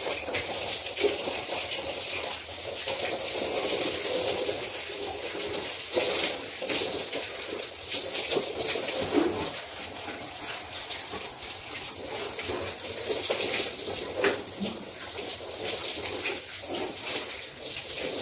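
Handheld shower head spraying water over hair and body and splashing onto the floor: a steady hiss with irregular spatters.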